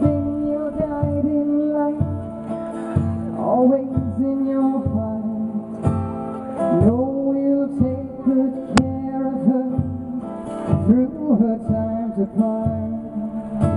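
A woman singing a slow song to her own strummed acoustic guitar, holding long notes and sliding up into each one. A single sharp click about nine seconds in.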